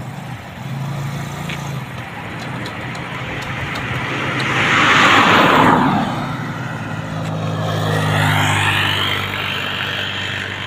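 A car passes close by, its tyre and engine noise swelling to a peak about five seconds in and then fading; a second vehicle passes a few seconds later, over a steady low engine hum.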